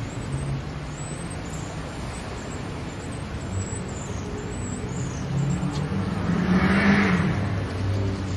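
Cars driving past close by over a steady low rumble from a double-stack container freight train rolling through the crossing; one car passes loudest about seven seconds in.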